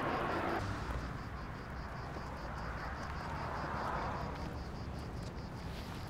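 Roadside ambience: the noise of passing traffic cuts off abruptly about half a second in. A low steady rumble of traffic remains, with insects chirping evenly and rapidly at about five chirps a second.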